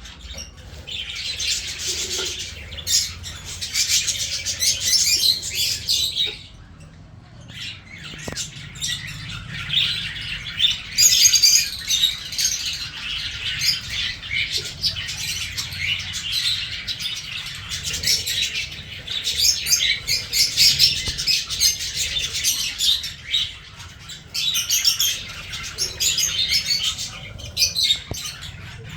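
A colony of pet cage birds chirping and chattering, many high calls overlapping, with a short lull about six seconds in.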